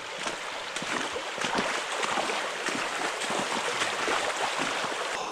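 Boots wading up a shallow, stony creek, water splashing and sloshing at each step over the steady rush of the stream.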